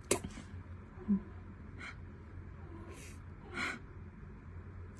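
A tiny tabby kitten making a few short, breathy sounds while its belly is rubbed, with a sharp one right at the start and a soft thump about a second in.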